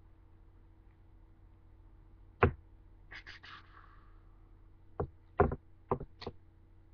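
Separate sharp plastic clicks and knocks: one about two and a half seconds in, a short rustle a second later, and four more in the last two seconds. This is a hair trimmer and its packaging being handled, with no motor running.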